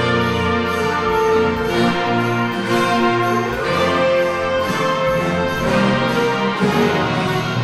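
Concert wind band playing, with brass to the fore, in held full-ensemble chords that move to new notes every second or so at a steady, full level.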